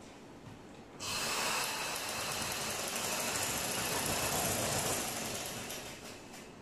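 Black sewing machine with an add-on electric motor running at speed, stitching a seam through fabric. It starts abruptly about a second in, runs steadily for about four seconds, then slows and stops near the end.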